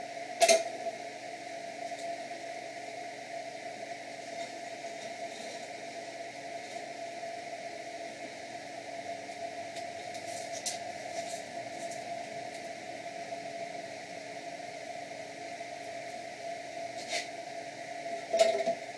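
Benchtop drill press running steadily with a constant hum and whine, a sharp knock about half a second in and a couple of louder clatters near the end.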